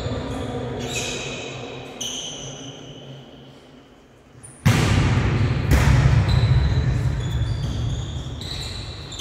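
Volleyball struck hard by hand, a sharp smack about halfway through and another about a second later, each ringing on in the echoing gym hall. Sneakers squeak in short high chirps on the court floor.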